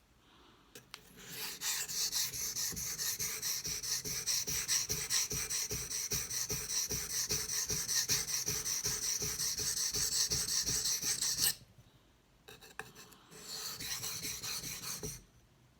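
Knife blade being stroked back and forth on a wet King whetstone, the slurry on the stone giving a gritty rasp with each quick, even stroke. The strokes run for about ten seconds, stop, a couple of small clicks follow, then a shorter run of strokes near the end.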